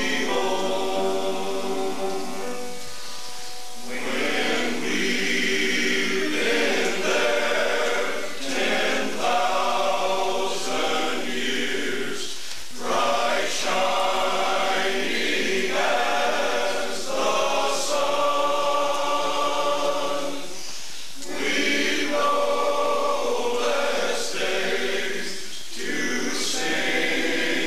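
Men's church choir singing in parts, pausing briefly between phrases.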